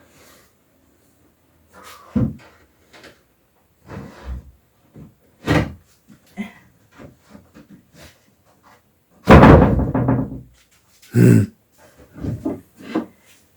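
Wooden shelf boards knocking and bumping as they are worked into place under pipes: a scattered series of knocks, with the loudest, longest clatter about nine seconds in and a sharp bump about two seconds later.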